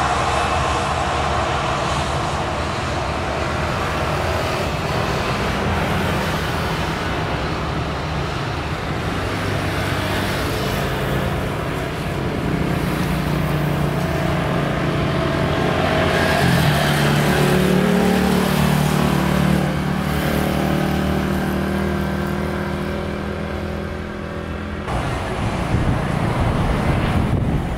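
Boeing 737-800's jet engines at high power as the airliner rolls along the runway, a steady jet noise with low droning tones that swells and then falls away as it recedes. Near the end the sound cuts abruptly to another airliner's engine noise.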